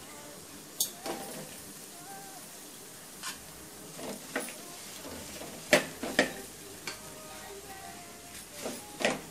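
Metal spoon knocking and scraping against an aluminium kadai as cooked rice is spooned into fried mint paste, a handful of sharp clinks, the loudest about six seconds in and again near the end. Oil sizzles faintly underneath.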